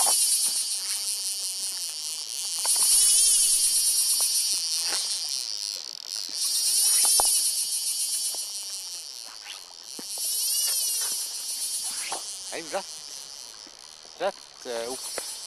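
Fly reel's drag buzzing loudly as a hooked Atlantic salmon runs and pulls line off it, rising in about four surges with a wavering pitch.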